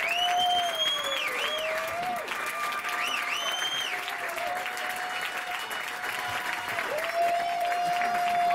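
Audience applauding, with a few sharp rising and falling whistles, over a singer's long held high note.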